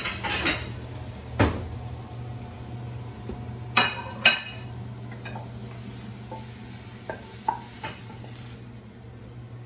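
A wooden spoon knocking and scraping in a frying pan of scrambled eggs and vegetables, with sharp clatters as the pan is handled and faint sizzling. Near the end come lighter taps as the scramble is scraped out of the pan onto a plate.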